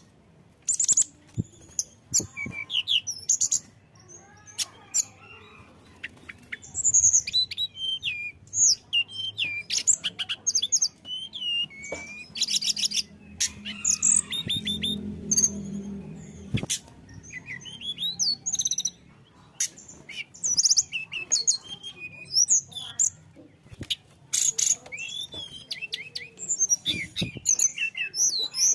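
Tledekan gunung songbird singing a rapid, varied song of high chirps, quick gliding whistles and short trills, in phrases broken by brief pauses.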